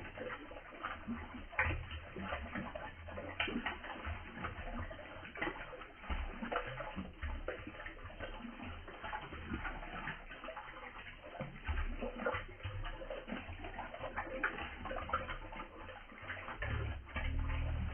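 Water flowing and splashing: a steady wash of irregular small splashes and drips over a low rumble.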